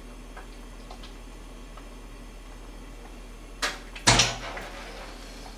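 Two knocks in a small kitchen about half a second apart, the second much louder, with a brief low ring after it; the rest is faint room noise.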